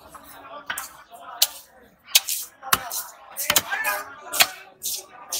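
A large fish-cutting knife knocking and clicking against a chopping block as aar catfish is filleted: about seven sharp, irregularly spaced strikes.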